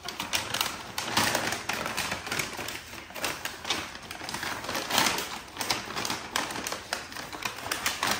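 Wrapping paper being torn and crinkled by hand as a present is unwrapped: a dense, irregular run of short rips and crackles.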